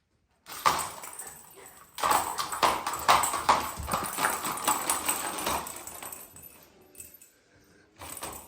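A dog paws and noses at a plastic cat toy, making a quick run of clattering knocks and taps. It starts sharply about half a second in, is busiest in the middle, then trails off.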